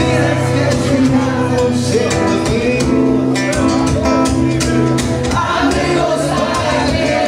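A man sings while strumming an acoustic guitar, amplified through a small PA. The sung melody wavers more clearly over the last couple of seconds.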